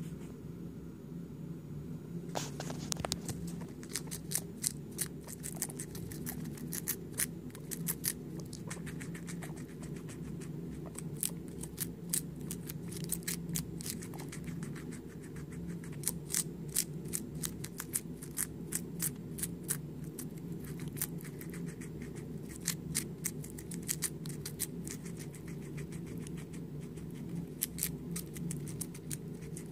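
Guinea pig chewing green leaf lettuce close up: crisp little crunching clicks in quick, irregular runs, starting about two seconds in, over a steady low hum.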